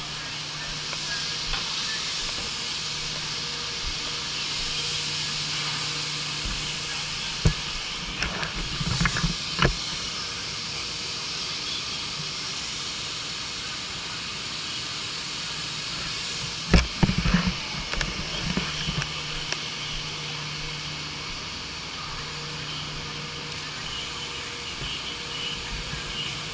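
Steady hiss over a low, even hum, broken by a few sharp knocks and short clatters, about a third of the way in and again past halfway.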